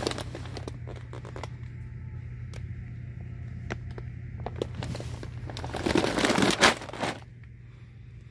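Crinkling and rustling of a large plastic dog food bag being handled, with scattered sharp clicks and loudest about six to seven seconds in, over a steady low hum.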